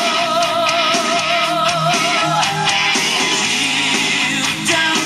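A song with guitar played back from a cassette on an Akai CS-M40R stereo cassette deck, with a long wavering held note through the first half or so.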